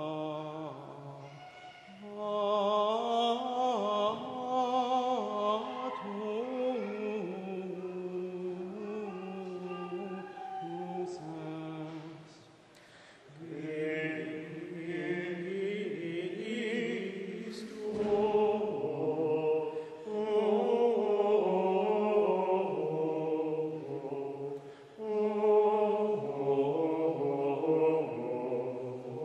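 Choir of men's voices singing Gregorian plainchant in Latin, the sung chant of the Easter Mass between the Epistle and Gospel. Long melodic phrases, with breath pauses about 12 seconds and 25 seconds in.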